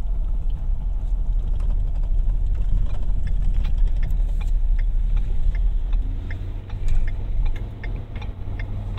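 Steady low rumble of a car engine idling, heard from inside the car, with scattered light ticks.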